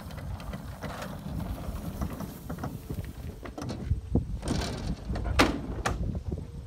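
DG-1000S glider rolling on the ground after landing: a low rumble from the wheel with irregular knocks and rattles through the airframe, and a few sharper knocks between about four and six seconds in.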